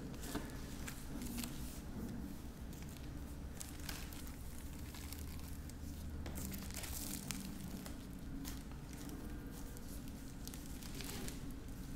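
Plastic wrapping crinkling and rustling in scattered bursts as packaging is handled, over a low steady hum.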